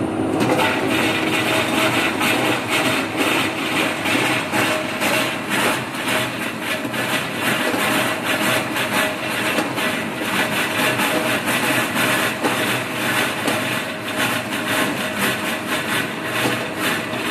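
Stainless-steel electric vegetable dicing machine running steadily, a motor hum under a rapid, continuous clatter of blades slicing and dicing whole carrots.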